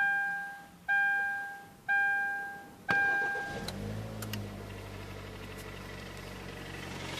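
KIA Sportage's dashboard warning chime sounding four times, about a second apart, each tone fading. About three and a half seconds in the engine starts, flares briefly and settles into a steady idle.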